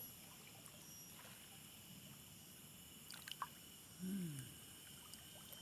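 Near silence, with a few faint clicks a little after three seconds and one short hum falling in pitch about four seconds in.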